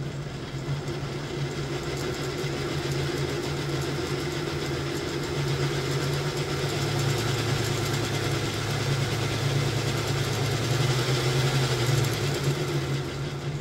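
Lionel O-scale GE U33C model locomotive running under power with both motors turning: a steady mechanical hum that swells a little in the second half. It is running at the speed step where something at the front starts rubbing again.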